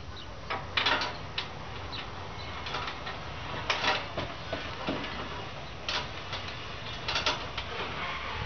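Boat-launch winch on a post ratcheting as the cable is taken up, giving a string of sharp, unevenly spaced clicks.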